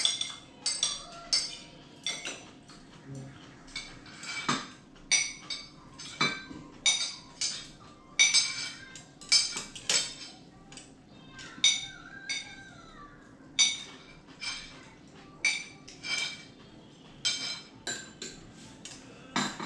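Chopsticks and tableware clinking against ceramic bowls and plates during a meal: irregular sharp clinks, about one or two a second.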